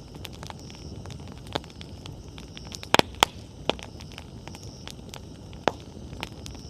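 Wood bonfire burning with a steady low rustle and scattered sharp crackles and pops, the loudest a quick cluster of pops about three seconds in.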